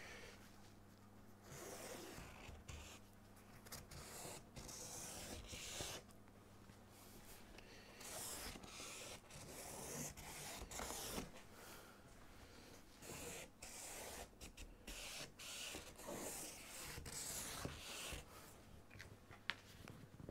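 A marker scratching along the edges of plywood pieces as their outlines are traced: a series of faint, soft strokes, each about a second long.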